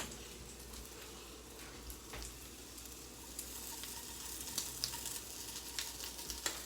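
Food sizzling faintly in a hot frying pan, with small crackles that come more often from about halfway through.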